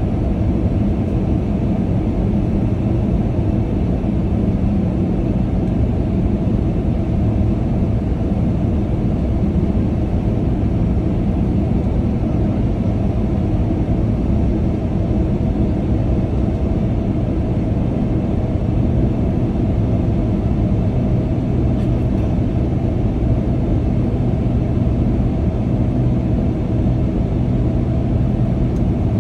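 Steady cabin drone of a Boeing 787-9 airliner in flight: engine and airflow noise, an even low rumble with a faint steady hum underneath that does not change.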